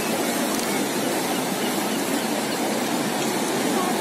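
Steady rushing noise of breaking sea surf and wind, even in level throughout.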